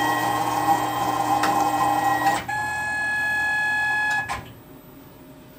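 Tormach 15L slant-bed CNC lathe's axis drive motors whining steadily as the tool carriage is jogged, switching to a different pitch about two and a half seconds in, then stopping suddenly a little past four seconds.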